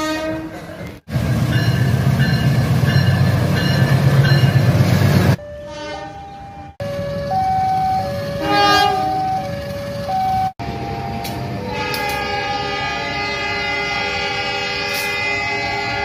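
Indonesian train horns in several quickly cut clips. First come short repeated horn toots over the heavy rumble of a passing train, then two horn notes alternating back and forth, and finally one long, steady multi-note horn blast.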